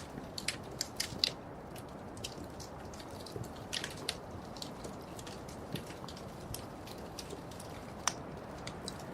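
Wood fire crackling in a fireplace: irregular sharp pops and snaps over a steady low rumble of the flames, with a louder pop about eight seconds in.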